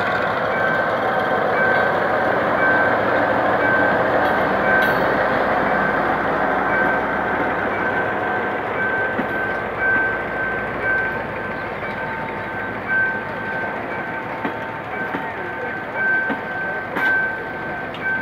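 GM G22W diesel locomotive and its passenger coaches rolling past a level crossing, the train noise loudest in the first few seconds and easing as the coaches go by. Through it the crossing's warning signal beeps about twice a second, and a second, lower warning tone joins about eleven seconds in.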